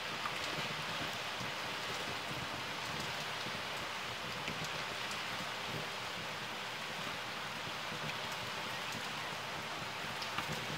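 Heavy rain pouring down steadily, with scattered light ticks of individual drops.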